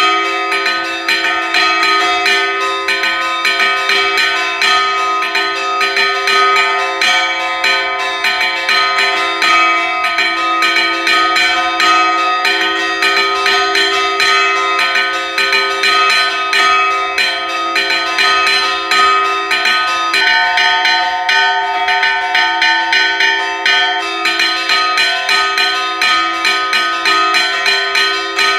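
Church bells rung in a fast repique: the clappers are pulled on ropes to strike a small and a larger bell in quick succession, the strokes coming several a second in an unbroken pattern, each bell's tone ringing on under the next strokes.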